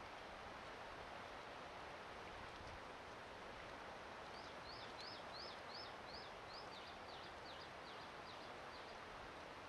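A small songbird sings one quick phrase a few seconds in: about seven rising notes, then about eight falling notes, some four a second. Under it runs a faint, steady hiss of wind.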